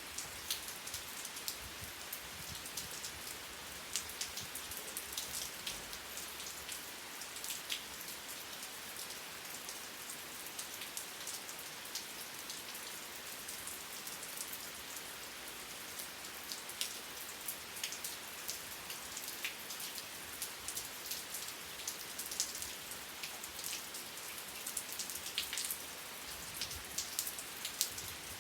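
Steady rain falling, an even hiss with many distinct drops pattering on a surface. No thunder.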